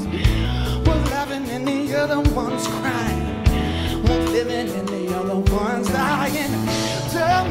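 Live rock band playing: a male voice singing with wavering, bending notes over electric guitars, electric bass and a drum kit with regular drum and cymbal hits.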